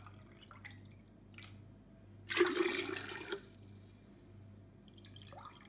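A glassful of water poured into a large container of lemon concentrate, a splashing rush lasting about a second midway, with a few faint light knocks of glass and container around it.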